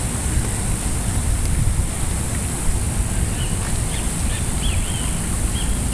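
Wind buffeting the camera microphone: a steady, loud rumble, with a few faint high chirps in the second half.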